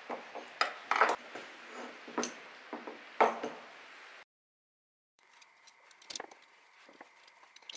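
Machined aluminium parts and small nuts clicking and clacking against each other and the workbench as they are handled and fitted, a string of irregular sharp knocks. The sound cuts out about four seconds in, then comes back as fainter scattered clicks.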